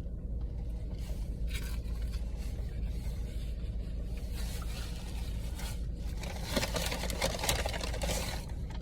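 Someone eating fast food: rustling, scraping and chewing noises, busiest near the end, over a steady low hum.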